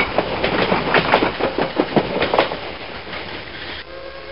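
Train wheels clicking over rail joints, the clickety-clack of rolling railroad cars, over a steady rumble. About four seconds in the clicking stops and a steady train whistle of several tones starts.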